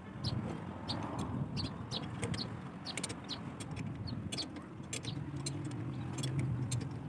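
Irregular light metallic clicks and taps, a few a second, of a hand wrench working the bolts on a tractor's cast-iron service plate, over a low steady hum.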